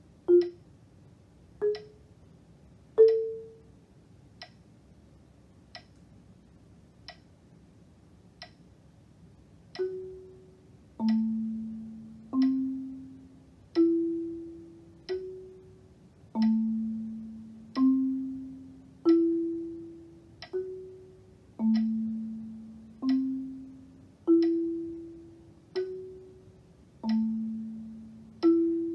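Marimba struck with yarn mallets, one note at a time at a slow, even pace, each note ringing and dying away. It opens with three rising notes and a few seconds of only faint ticks on the beat. After that it plays a rising four-note figure over and over, about one note every second and a third.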